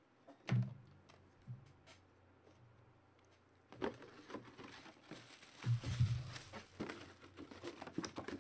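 Handling of a cardboard mini-helmet box and its plastic wrapping: a soft thump about half a second in, then from about four seconds in, plastic crinkling and cardboard rustling with several small knocks.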